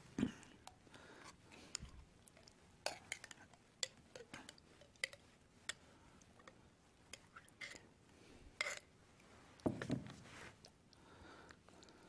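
Metal spoon scraping and clinking against a cheese-sauce jar and a glass mixing bowl while the sauce is scraped out and stirred into chili: scattered light clinks and taps, with a few duller knocks, the loudest just after the start and about ten seconds in.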